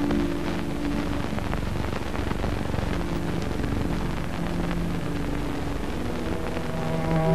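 Rain pattering with a dense crackle, over a few soft, low, held notes of music.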